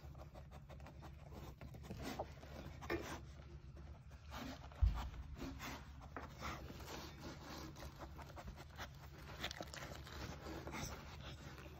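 Soft rustling and scraping of hands and blanket being handled, with a dull thump about five seconds in, over a low steady hum.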